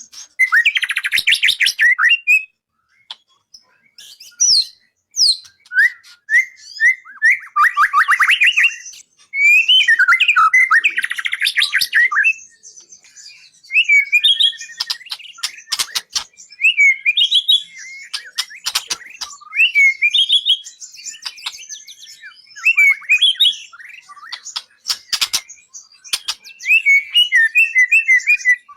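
White-rumped shama (murai batu) singing a varied song of short whistled phrases and rapid trills, with sharp clicks mixed in, as a tutor song for training caged songbirds.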